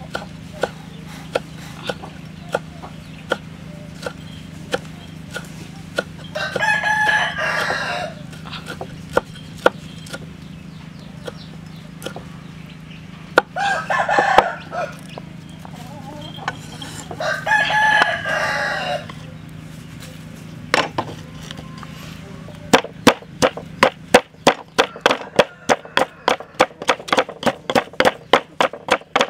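Steel cleaver chopping chillies on a wooden chopping block, single chops about every second, while a rooster crows three times. In the last several seconds, a fast steady run of strikes, about three a second, as the chillies are pounded with a wooden pestle in a mortar.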